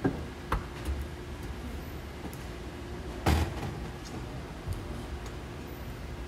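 Kitchen work sounds over a steady hum: a few light knocks in the first second and one louder clatter a little over three seconds in.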